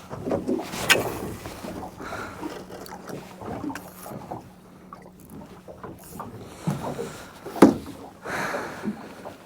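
Water lapping and slapping against the hull of a small fishing boat, with small irregular knocks and two sharp knocks, one about a second in and a louder one about seven and a half seconds in.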